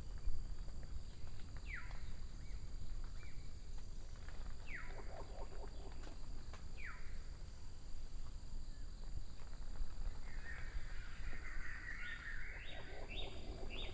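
Forest birds calling: three sharp downward-sliding calls a couple of seconds apart, then near the end a burst of harsh chattering calls with quick falling notes.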